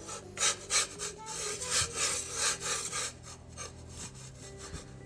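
A spatula scraping across a griddle in a series of short, rough strokes, working under a pancake to lift it for flipping.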